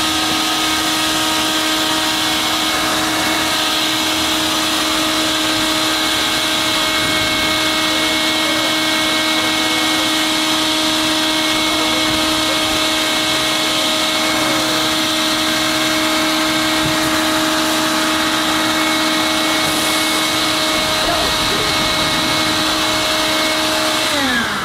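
Electric air blower inflating a water walking ball through a hose, running at a steady whine with a rushing hiss of air. Near the end it is switched off and its pitch falls as it winds down.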